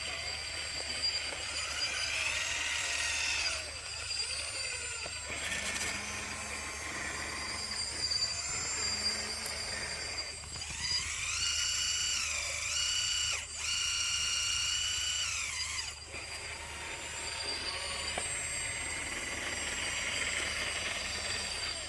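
Small electric motors and gearboxes of RC model construction machines whining as they drive and work, the pitch climbing and falling as the motors speed up and slow down, in several bouts with short pauses. The longest bout, in the middle, steps up, holds and drops back.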